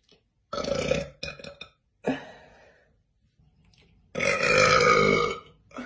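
A woman burping loudly: a few short burps in the first couple of seconds, then one long, drawn-out burp of more than a second near the end.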